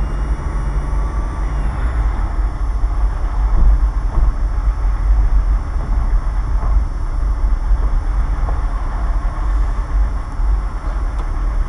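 Car driving slowly, heard from inside the cabin: a steady low rumble of engine and tyre noise.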